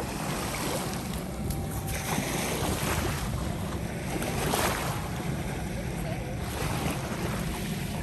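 Small lake waves washing up on a sandy shore, swelling and easing a few times, with wind buffeting the microphone in a low rumble.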